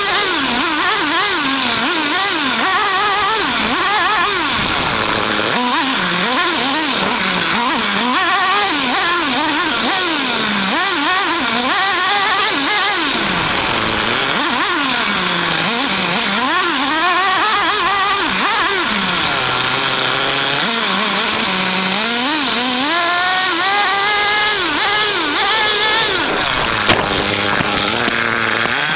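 Small nitro engine of a 1/8-scale RC truck (the Earthquake 3.5's 3.5 cc engine) revving up and down over and over as the truck is driven, with a sharp click near the end.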